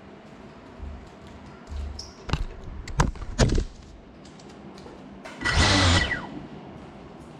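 Bare feet thudding and slapping on a tile floor right beside the microphone, with three sharp knocks in quick succession a little after two seconds in. A loud rushing noise of about a second follows near the six-second mark.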